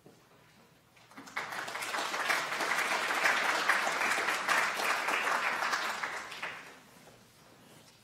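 Audience applauding. It starts about a second in, swells to a full round of clapping and dies away near the end.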